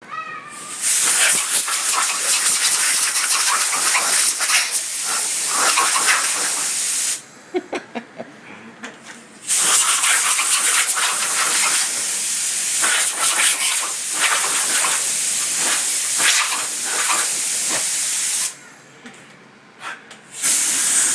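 Compressed air from an air compressor hissing out of a hose nozzle in long blasts: one of about six seconds, a pause, one of about nine seconds, then another starting near the end.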